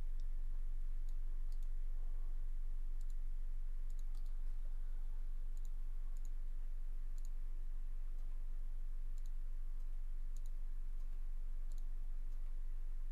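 Computer mouse clicking: a dozen or so short, sharp single clicks at uneven intervals, over a steady low electrical hum.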